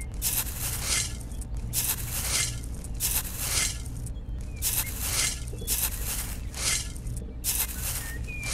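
Small toy shovel scraping and scooping wet mud, a rhythmic run of short gritty scrapes at about two a second, with a steady low hum underneath.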